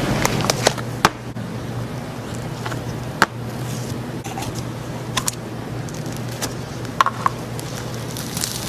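Slime being handled: a few sharp clicks and pops, spaced a second or two apart, over a steady low hum.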